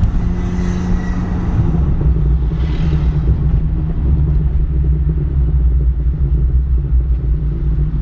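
Volkswagen Mk6 GTI's turbocharged 2.0-litre four-cylinder, fitted with a K04 turbo, running at a steady engine speed with a low, even exhaust drone. A brief hiss comes about three seconds in.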